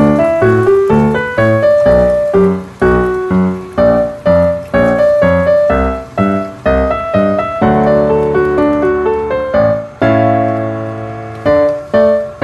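Background piano music: a brisk run of struck notes and chords, each fading away, with two longer held chords in the second half.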